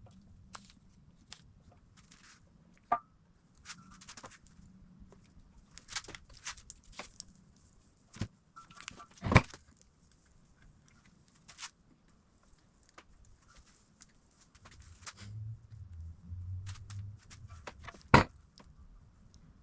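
Scattered clicks and knocks of hand work on suspension control-arm parts, with two sharper, louder knocks, one about midway and one near the end.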